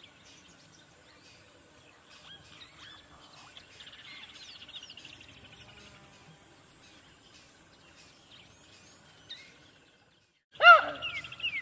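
Faint birdsong over outdoor ambience: scattered chirps, and a trill a few seconds in. Near the end, a loud pitched animal call rings out, followed by a run of quick falling chirps.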